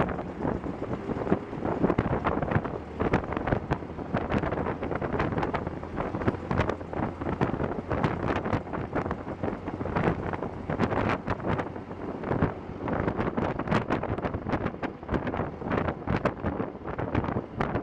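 Wind buffeting the microphone in a 1910 Paterson open touring car under way, over the car's running as it drives along.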